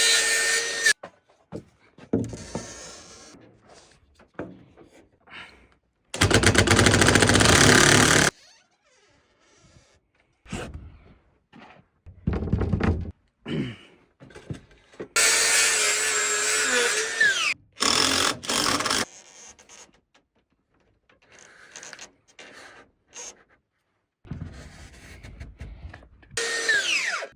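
Power drill running in several short bursts, its motor whine falling in pitch each time it is let off. Knocks and handling clatter come between the bursts.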